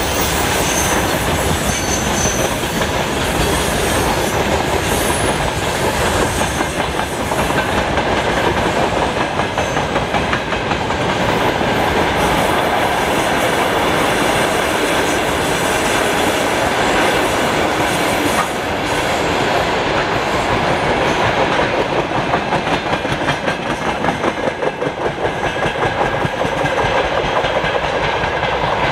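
Freight train wagons rolling past, their steel wheels clattering steadily over the rail joints.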